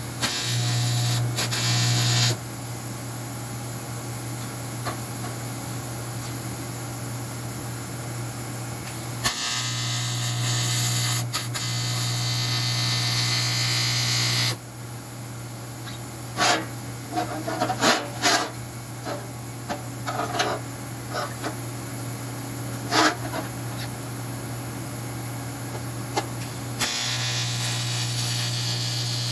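An aluminium welding arc buzzes with a hissing edge in three runs: briefly at the start, for about five seconds in the middle, and again near the end. A steady machine hum runs between the runs, and a scatter of sharp metallic clicks and knocks comes after the middle run.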